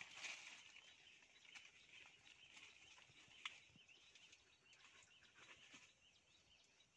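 Near silence: faint outdoor ambience with soft, high, continuous chirping and a few light clicks.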